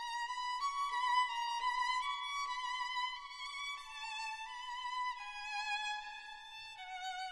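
Background music: a single slow melody line with vibrato, its notes stepping gradually lower in pitch.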